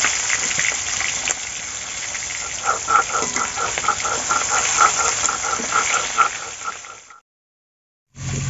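Pangas catfish steaks frying in oil in a steel wok: a steady sizzle. From about three seconds in, a rhythmic call repeats about five times a second over it, and the sound cuts off about seven seconds in.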